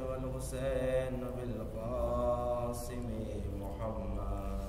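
A man's voice reciting in a slow melodic chant, drawing out long held notes that glide gently up and down, over a low steady hum.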